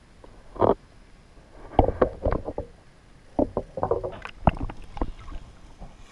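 Handling noise on a kayak as a caught spotted bay bass is held in a gloved hand: irregular knocks, bumps and rubbing, bunched about two and four seconds in.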